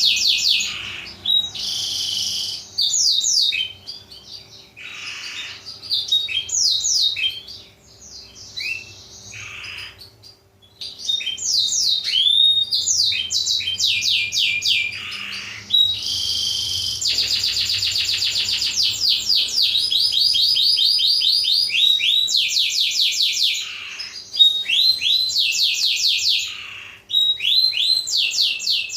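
Black-throated canary (blackthroat) singing a long, varied song of fast chirps and rapid trills made of quick falling notes. There is a quieter, sparser stretch in the middle before the trills pick up again.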